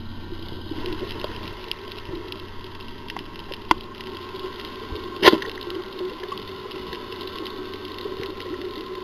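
Underwater ambience: a steady hiss of water noise with a light crackle of scattered clicks, and two sharp clicks about three and a half and five seconds in, the second louder.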